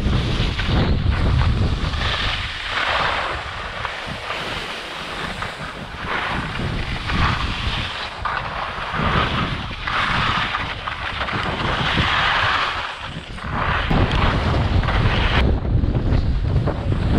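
Wind buffeting the microphone of a ski-mounted action camera during a downhill run, with the hiss of skis scraping over packed snow swelling and fading in repeated waves as the skier turns.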